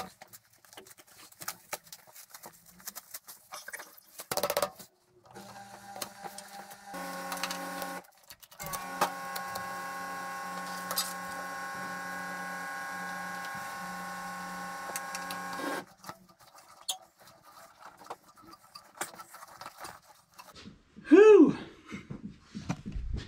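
Metal screw clamps being set and tightened on a glued racket blank, with small clicks and knocks of the clamp bars and screws. A steady hum of several tones runs for about nine seconds in the middle, and a short, loud sound that dips and rises in pitch comes near the end.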